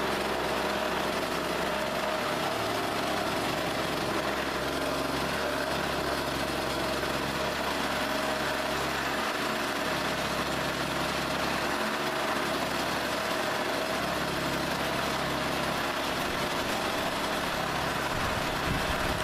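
Small weed eater engine running steadily, spinning a 12-volt DC motor used as a generator. A steady tone sits over the engine noise.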